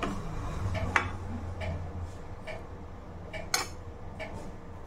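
Soft, regular ticking, a little faster than once a second, over a low steady hum, with two sharp clicks about one second and three and a half seconds in.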